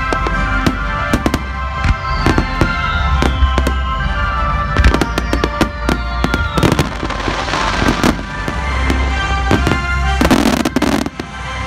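Daytime fireworks star mine: a rapid barrage of shells bursting, with many sharp overlapping bangs and pops, over music. The music drops out about ten seconds in while the bursts go on.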